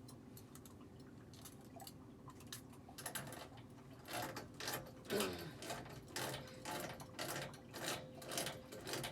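Metal clicks and clanks of a wrench and pipe fittings being worked around a well pump pressure switch, starting about three seconds in and coming in quick irregular strokes, with a brief falling squeak near the middle.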